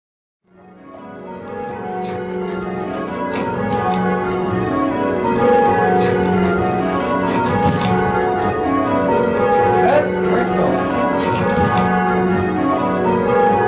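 A ring of eight church bells, cast by Taylors in 1925 with a 14 cwt tenor in F#, being change rung, strokes following one another in a rapid, steady stream. The ringing fades in over the first couple of seconds.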